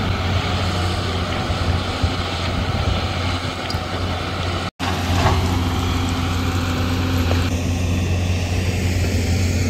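Hyundai hydraulic excavator's diesel engine running steadily as a low drone, with a brief dropout about halfway through.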